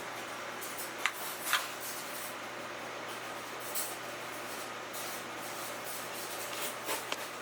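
Food being prepared by hand in a café kitchen: a few short, light clinks and scrapes of utensils or dishes over a steady background hiss.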